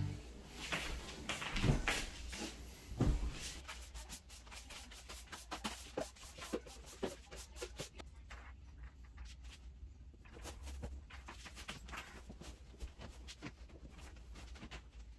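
Faint handling sounds: scattered light clicks, taps and rustles of objects being handled, with a few louder knocks in the first three seconds, over a low steady hum.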